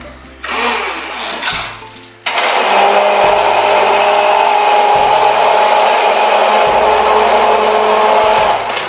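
Electric immersion (hand) blender blending yogurt, milk and crushed ice into lassi. After a brief first burst, it starts about two seconds in and runs steadily with a constant motor whine, then stops near the end.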